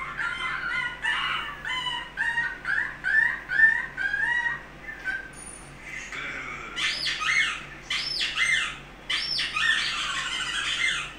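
High-pitched bird-like calls: a run of short rising chirps, about two a second, then after a brief pause louder, higher arching squawks.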